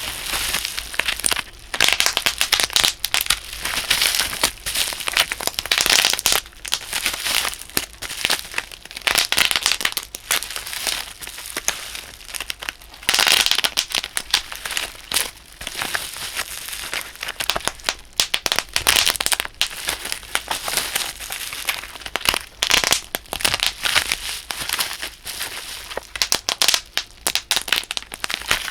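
Bubble wrap being squeezed and crushed in hands wearing thick rubber gloves: a dense run of sharp pops and crinkling plastic, with a few short pauses.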